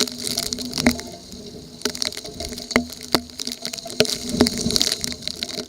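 Heavy typhoon rain and wind, with raindrops striking close by in sharp, irregular taps over a steady hiss and a faint low hum. The sound drops away suddenly at the very end.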